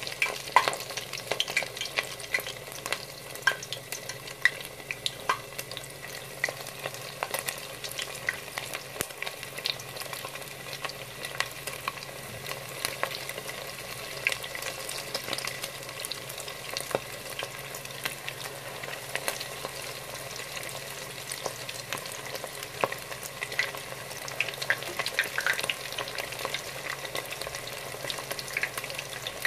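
Panko-crusted catfish nuggets deep-frying in hot oil: a steady sizzle with frequent crackling pops.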